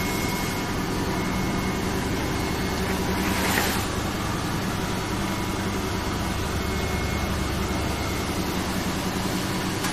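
Steady mechanical hum of a running semi-automatic PET stretch blow molding machine, with a short burst of hiss about three and a half seconds in.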